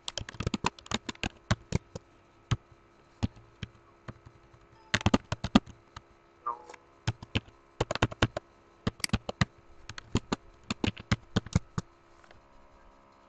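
Computer keyboard keys clicking as commands are typed, in irregular bursts of quick keystrokes with short pauses between.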